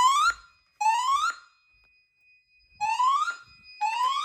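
Fire alarm speakers sounding a rising sweep tone, each whoop about half a second long and about a second apart, grouped in threes with a pause of about a second and a half between groups: the temporal-three evacuation signal. A faint steady high tone runs underneath.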